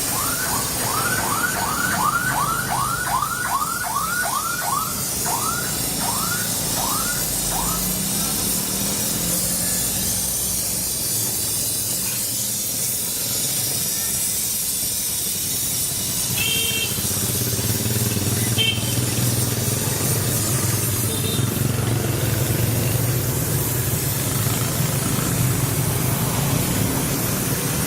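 Gas brazing torch flame hissing steadily as it heats the refrigerator's aluminium tubing for brazing. A rapid run of about fifteen short chirps sounds over it in the first seven seconds, and a low hum joins about halfway through.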